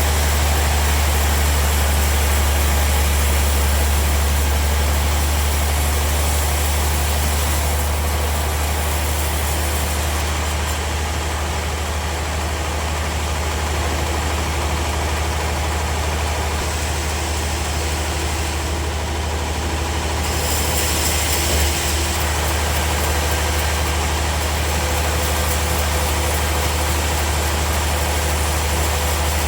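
Sawmill machinery running steadily with an even, deep hum, like an engine idling; no distinct cut or impact stands out.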